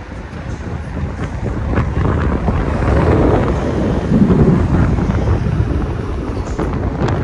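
Storm wind gusting hard on the microphone, a loud low rumble that builds about a second in and eases slightly near the end.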